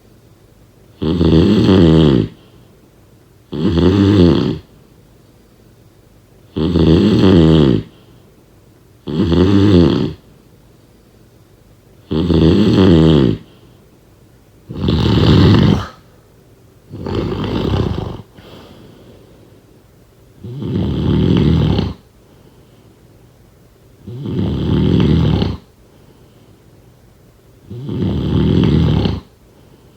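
Loud snoring: ten snores, one every two to three seconds, each about a second long, with a slightly longer gap about two-thirds of the way through.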